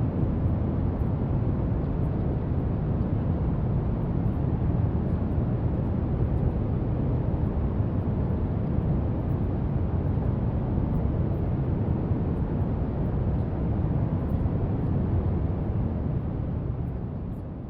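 Steady brown noise, a deep even rushing hiss weighted toward the low end, which begins to fade out in the last couple of seconds.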